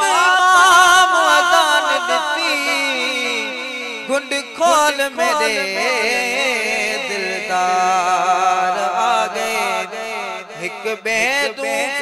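A man singing a Sindhi naat in long, ornamented held notes that waver in pitch.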